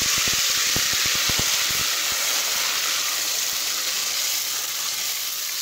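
Milk-soaked semolina being poured into hot oil and caramelised sugar, hissing and sizzling loudly as the wet mixture hits the hot syrup. A run of short clicks comes in the first two seconds, and the hiss eases a little toward the end.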